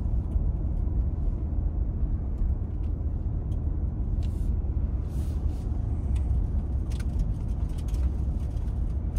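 Steady low rumble of a vehicle driving, heard from inside the cabin: engine and tyre noise on the road, with a few faint clicks.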